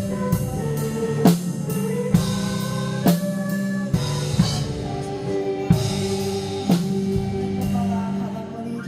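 A band playing a praise song: sustained guitar or keyboard chords over a drum kit, with a sharp drum hit about once a second.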